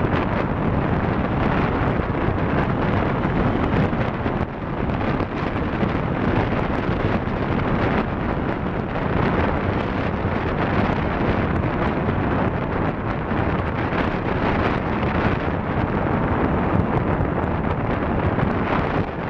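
Airflow rushing over a tandem hang glider in flight, buffeting the microphone as a steady, loud wind rush.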